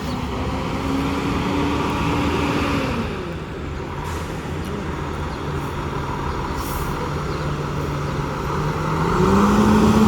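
Fire truck's diesel engine pulling away. It revs up, falls back about three seconds in, runs steadily lower, then revs up again near the end as it accelerates.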